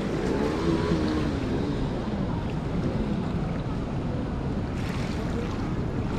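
The Narayani River in flash flood: swollen floodwater rushing as a steady, dense noise.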